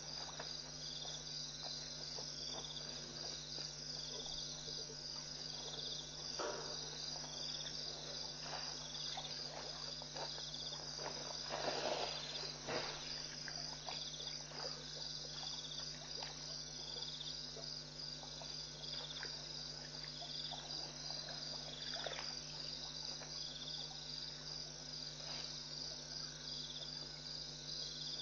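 Night insects chirping steadily in an even, pulsing chorus, over a steady low hum. Faint clicks and rustles come and go, with a louder rustle about twelve seconds in.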